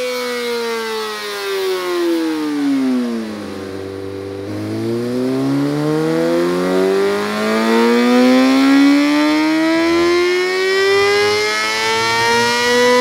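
2008 Kawasaki ZX6R's inline-four engine, through an Akrapovic slip-on exhaust with the catalytic converter removed, on a dyno. Its revs fall over about three seconds and hold low for about a second. Then they climb steadily for about eight seconds as the rear wheel drives the dyno roller in a power run.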